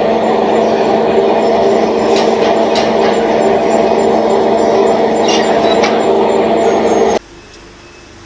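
Automatic valve bag filling machine running with a loud, steady hum made of several tones, with a few sharp clicks about two to three seconds in and again around five seconds in. The sound cuts off suddenly about seven seconds in, leaving a much fainter hum.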